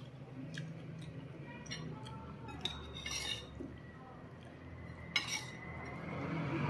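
Metal spoon and fork clinking against ceramic bowls: a few scattered sharp clicks, the loudest a little after five seconds in.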